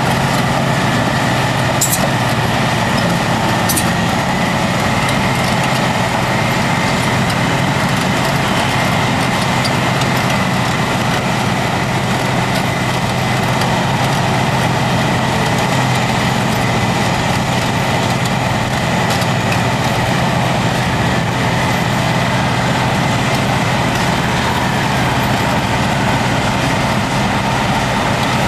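Caterpillar D10N crawler dozer and Cat 631E wheel tractor scraper engines running hard and steady as the dozer push-loads the scraper, a loud, unbroken heavy diesel drone. Both machines are under heavy load.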